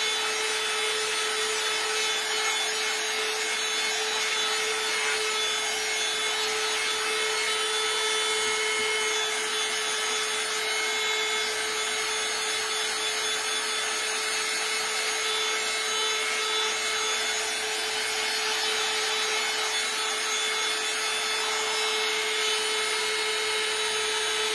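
Small handheld craft heat gun blowing steadily to dry chalk paint on wood: an even rushing hiss with a steady hum.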